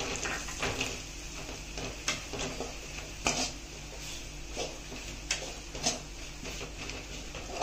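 Perforated metal spatula scraping and tapping against a metal kadai while stirring sautéed onions and spices with gram flour: irregular short scrapes and clicks, a dozen or so.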